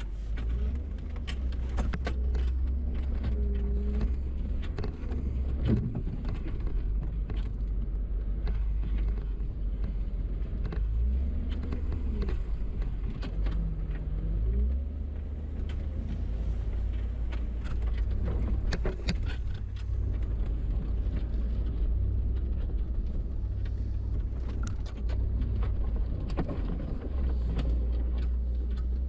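Off-road 4x4 driving slowly over a rough trail, heard from inside the cab: a steady low engine and drivetrain rumble with frequent sharp knocks and rattles from the body and suspension over the bumps.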